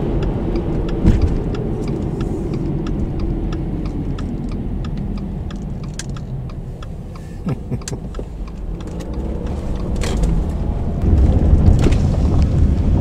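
Car interior while driving: a steady low rumble of tyres and engine with scattered light clicks and rattles. The rumble grows louder and rougher about two seconds before the end, as the car runs onto a snow-covered lane.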